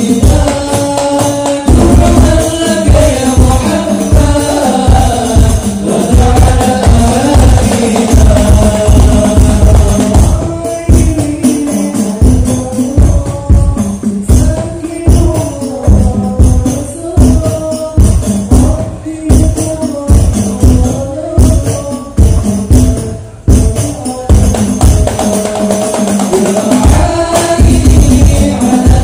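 Hadroh ensemble: a group of young men singing a devotional song together into microphones over a fast, steady beat of rebana frame drums. The drumming thins out briefly a little after three-quarters of the way through, then comes back in.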